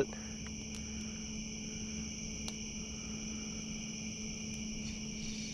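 Night chorus of crickets and other insects: a steady, shrill trilling in several pitches, with a low steady hum underneath and a few faint ticks.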